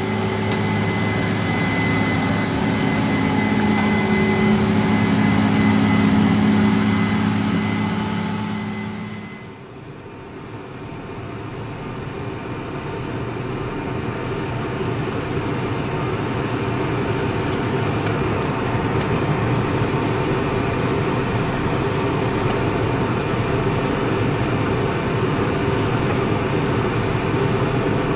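Farm harvest machinery running: a steady engine drone with a high whine for about the first nine seconds, which then fades away. A second, rougher steady machine noise builds back up and holds.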